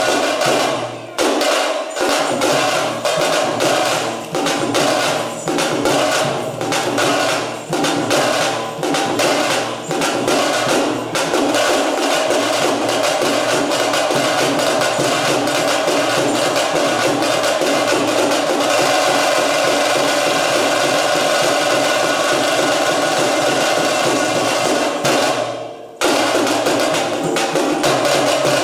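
Veeragase folk dance music: fast, dense drumming under a sustained melodic line, cutting out for a moment near the end.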